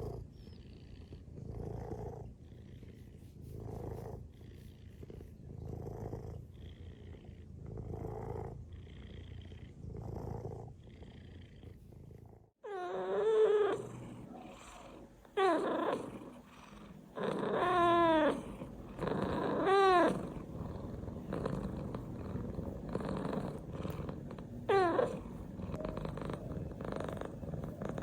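Domestic cat purring, swelling and fading with each breath about every two seconds. Midway the sound cuts to another cat purring and giving several short, loud meows that fall in pitch.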